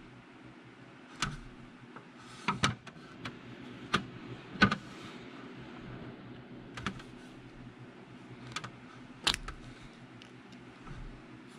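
Small metal clicks and light taps from a two-stroke chainsaw carburetor being handled and taken apart by hand. About ten scattered clicks, the sharpest about four and a half seconds in and again near nine seconds, over a faint steady hum.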